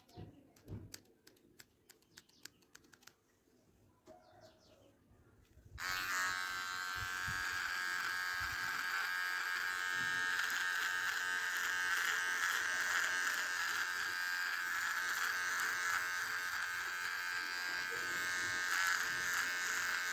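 Scissors snipping beard hair in quick, faint clicks. About six seconds in, an electric hair trimmer switches on and buzzes steadily as it cuts the beard along the neck.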